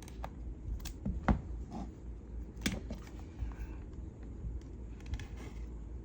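Scattered clicks and scrapes of a cardboard product box being pried open with a small opener tool, with a few sharper knocks about a second in and near the middle.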